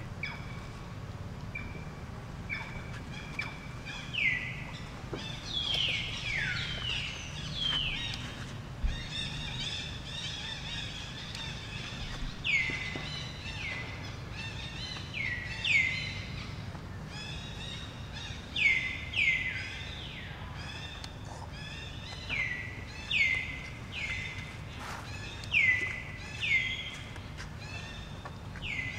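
Many short, high calls, each sliding quickly down in pitch and ending on a brief held note, repeated every second or so, over a low steady rumble of outdoor background noise.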